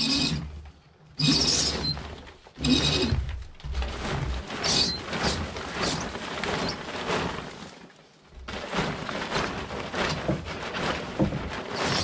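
Plastic tarp crinkling and rustling as it is gathered and rolled up by hand, in irregular bursts with a few sudden starts.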